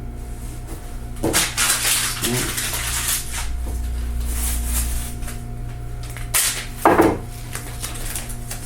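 Tape being pulled off the roll and pressed down in strips, heard as two stretches of rasping rip, then a couple of sharp knocks and a tear near the end, over a steady low hum.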